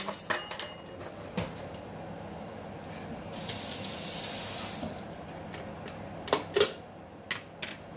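A kitchen tap runs briefly, its water hissing for under two seconds about halfway through, switched on and off abruptly. Scattered clicks and knocks around it, with two sharp knocks a little after the tap stops that are the loudest sounds.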